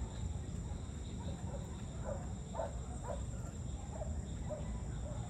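Evening outdoor ambience: a steady high-pitched insect chorus over a low rumble, with a few short faint animal calls about two to three seconds in.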